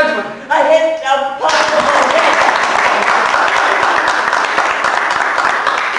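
A voice calls out briefly, then a theatre audience applauds steadily for several seconds.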